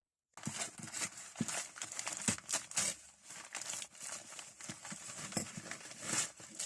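Parcel wrapping crumpled and torn open by hand: a busy, scratchy crinkling with many small crackles, starting about a third of a second in.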